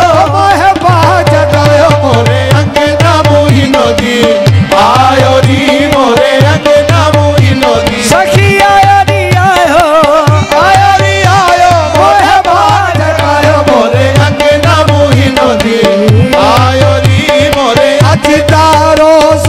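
Qawwali music: a harmonium playing an ornamented melody over a held note, with tabla keeping a steady rhythm.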